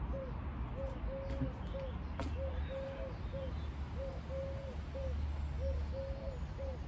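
Eurasian collared dove cooing in repeated three-note phrases, short-long-short, about every one and a half seconds, over a steady low rumble.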